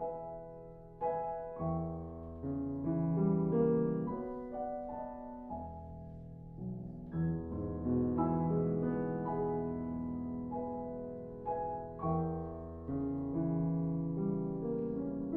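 Grand piano playing alone in a slow classical passage: chords and single notes struck one after another and left to ring. This is the piano part of a German art song, with the voice silent.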